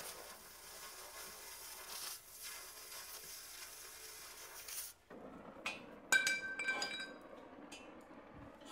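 Oxy-fuel cutting torch hissing steadily as it cuts through steel pipe, stopping abruptly about five seconds in. Then several sharp metal clinks with a ringing tone.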